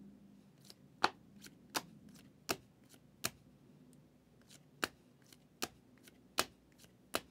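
Trading cards being handled one at a time, each one set down or flipped with a sharp papery snap, about one every three-quarters of a second, with a short pause in the middle.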